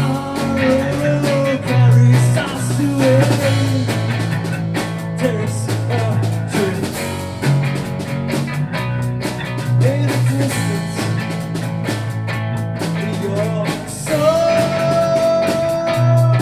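Rock band playing live: electric guitar, bass guitar and drum kit, with a male lead vocal sung over them. A long held note comes near the end.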